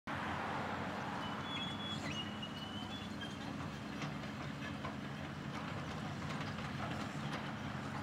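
Caterpillar crawler bulldozer's diesel engine running steadily as the dozer pushes a load of dirt with its blade, with the rattling clank of its steel tracks. A thin high squeal sounds from about one to three and a half seconds in.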